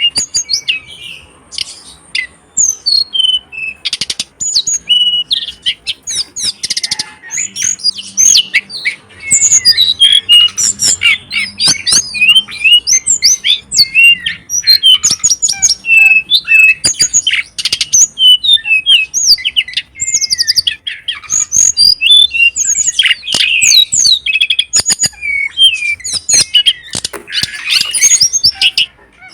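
Pet songbird singing a fast, varied stream of chirps, trills and whistles, loud and nearly unbroken.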